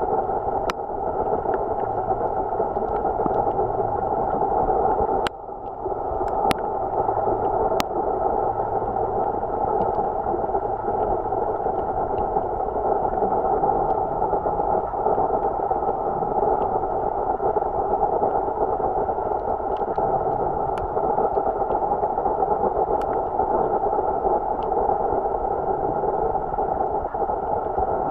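Steady, muffled underwater water noise picked up through a submerged camera's housing, with a few sharp clicks, one of them about five seconds in where the noise briefly dips.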